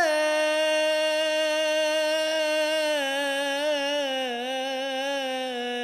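A man's solo unaccompanied voice chanting an Egyptian Islamic ibtihal, holding one long drawn-out note. About halfway through it begins to waver with melodic ornaments, and near the end it sinks slightly in pitch.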